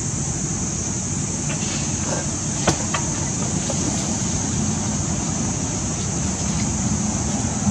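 Steady outdoor background noise: a low rumble with a constant high hiss over it, and a single sharp click nearly three seconds in.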